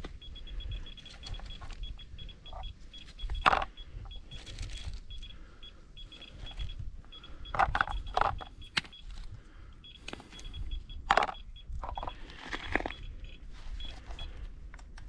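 Handheld Geiger counter dosimeter chirping in short high beeps at an irregular, fairly quick rate, each beep a detected particle from uranium-bearing mine-dump rock; the display reads about 0.2 microsieverts per hour. Loose stones knock and clatter several times as samples are handled.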